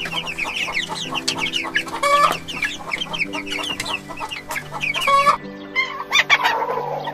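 Domestic chicken sounds: a brood of chicks peeping rapidly and continually, with a hen giving two louder calls, about two and five seconds in. Steady background music runs underneath.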